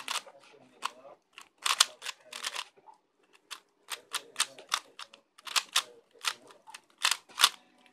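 Layers of a plastic 3x3 speedcube being turned by hand: a run of sharp, irregular clicks, about two to three a second.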